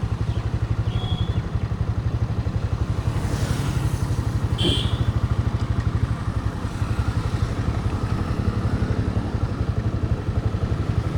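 TVS Raider 125's single-cylinder engine running steadily under way, a fast even exhaust pulse at a fairly constant speed.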